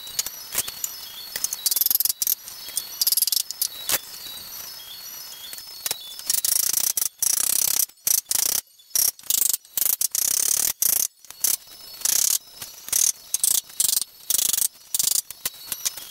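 Hammer knocks and clattering of wooden beams being fitted together into a frame: quick, irregular bursts of high-pitched rattling and knocking.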